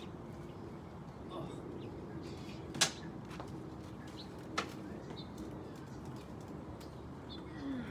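Handling of a window air conditioner being set on a chair: two sharp knocks about two seconds apart, the first louder, over a steady outdoor background with a faint hum.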